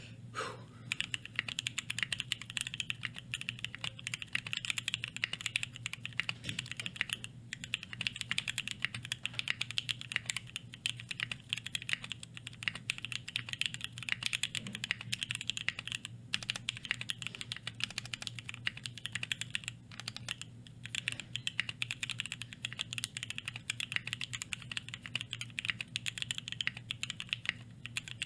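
Mechanical keyboard typed on continuously, a quick irregular run of key clacks with a fairly high pitch: a KBDFans ANODE 60 aluminum tray-mount case with Durock Speed tactile switches on an aluminum plate and PBT keycaps. The typing stops briefly about seven, sixteen and twenty seconds in.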